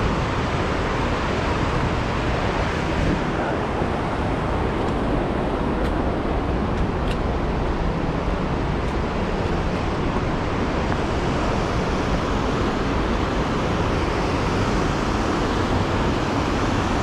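Rushing water of a large waterfall and its stream, a loud steady noise.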